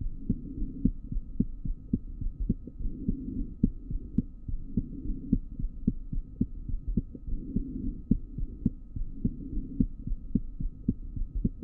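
Heart sounds heard through a stethoscope: a quick, regular lub-dub in which the second sound splits into two close beats, a physiological, intermittent split of the second heart sound that shows more clearly on inspiration. A soft rushing swells every few seconds.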